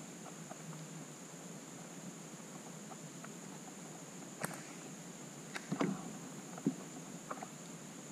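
Quiet river-side ambience with a steady high-pitched insect buzz, broken by a few small knocks and taps on the kayak, loudest about six seconds in.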